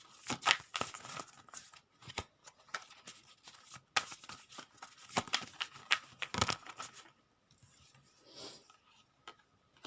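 Tarot cards being shuffled and pulled from the deck: a dense run of card flicks, snaps and rustles for about seven seconds, then it goes quiet.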